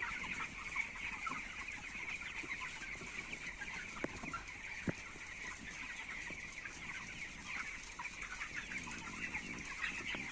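A flock of nineteen-day-old chicks peeping continuously in a dense chorus of many overlapping high chirps.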